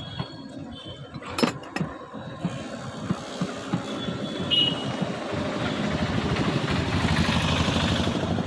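A vehicle engine running with a fast low pulsing, a sharp click about one and a half seconds in, and the sound swelling louder near the end.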